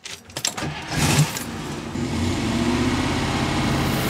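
Ignition key turned and a vehicle engine cranked by its starter. It catches about a second in with a brief surge, then settles into a steady idle.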